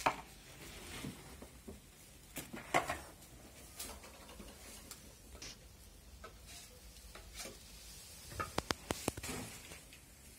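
Sugarcane juice boiling in a large open pan while a long-handled metal skimmer stirs and scrapes through the froth, with scattered knocks and a quick run of sharp clicks near the end.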